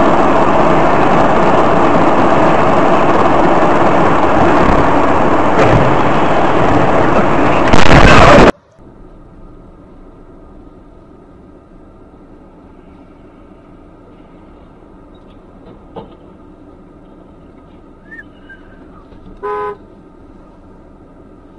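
Loud, even rushing road and wind noise from a dashcam for about eight seconds, growing louder for a moment before it cuts off suddenly. Then a quiet steady engine hum inside a car, with one short car-horn toot near the end.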